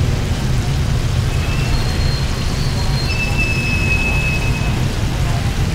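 Steady sizzle of deep-frying oil over a low rumble of street traffic, with faint thin high tones in the middle.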